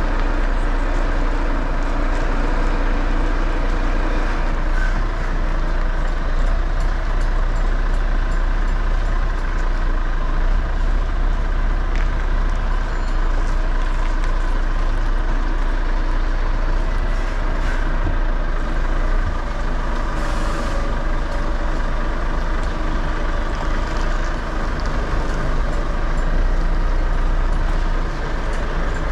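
Semi-truck's diesel engine running steadily while the rig is manoeuvred at low speed onto a loading dock, with a short hiss of air about twenty seconds in.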